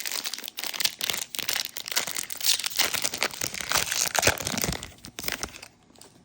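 Trading-card pack wrapper being torn open and crinkled by hand, a dense crackling that stops shortly before the end.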